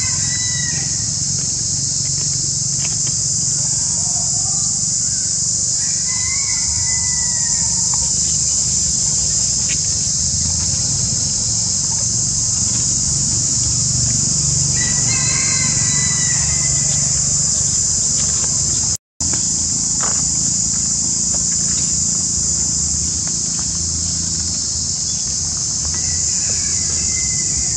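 A steady, shrill insect chorus, with a rooster crowing about five times, each crow lasting a second or so. The sound drops out for a moment about two-thirds of the way through.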